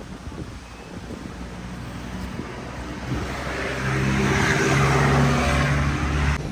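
A motor vehicle's engine running, growing louder from about three seconds in and cutting off suddenly near the end.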